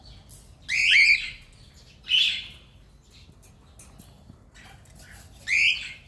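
Cockatiels giving three harsh, loud calls, each about half a second long: about a second in, at about two seconds, and near the end. Faint clicks sound between the calls.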